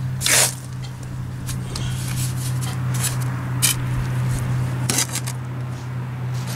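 Steel mason's trowel scraping and spreading wet mortar on the back of a stone step piece: a loud scrape about half a second in, then several shorter scrapes and taps. A steady low hum runs underneath.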